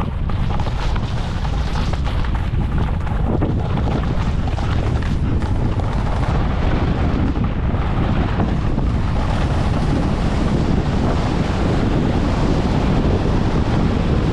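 Wind buffeting the microphone: a steady low rush with hiss above it.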